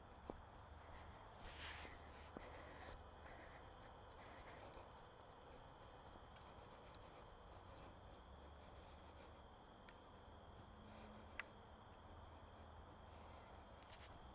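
Faint insects chirping in a steady, even rhythm, typical of crickets in a late-summer garden, with a high steady trill underneath. A few soft rustles in the first few seconds and a single light click about eleven seconds in.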